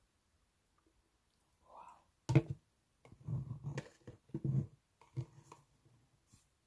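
Clear plastic tub of radish seeds handled on a table: a sharp plastic knock about two seconds in, then a few short spells of seeds rattling and sliding in the tilted tub.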